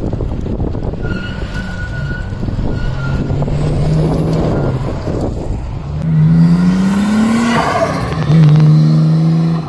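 Car engines: first a moderate engine note under rushing, wind-like noise, then a louder engine pulling away, its pitch rising for about a second and a half and dropping sharply at a gear change, then holding a loud, steady note near the end.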